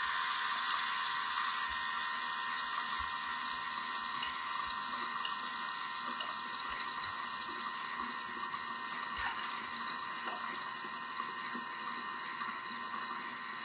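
Thermomix TM6 motor running steadily at speed 3.5, mixing the macaron cream filling: an even whir with a steady hum-like tone.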